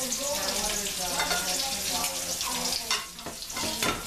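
Breaded brie pan-frying in hot oil in a skillet, a steady sizzle, with metal tongs clicking against the pan now and then as the pieces are turned.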